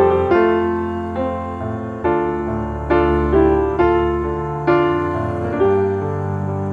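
Background piano music: chords struck about once a second, each dying away before the next.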